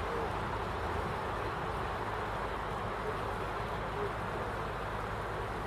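Steady low rumble and rushing noise of a boat under way, with a few faint short squeaks on top.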